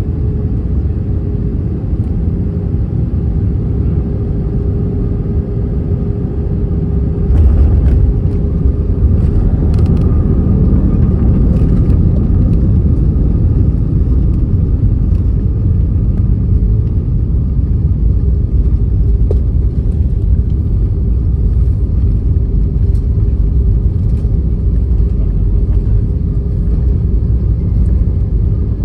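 Airbus A320-200 cabin noise during landing: a steady low rumble with a constant hum. About seven seconds in it gets suddenly louder with a brief rattle, and it stays louder after that.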